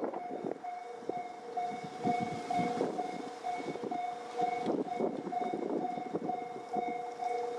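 Japanese level-crossing warning bells ringing, about two strokes a second: one higher-pitched bell, joined about a second in by a second, lower-pitched bell. Under them, a train's rumble and rail clatter.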